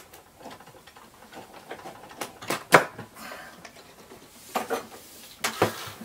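A large kitchen knife cutting into a pumpkin, with scattered knocks and scrapes of the blade and pumpkin against the cutting board; the loudest knock comes a little under three seconds in.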